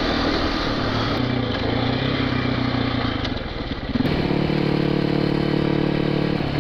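KTM enduro bike's single-cylinder engine running along a rough, slippery dirt track, its note half buried in a noisy rumble from the ruts and wind. About four seconds in this gives way to a Yamaha WR400F supermoto's single-cylinder engine holding a steady pitch at cruising speed on tarmac.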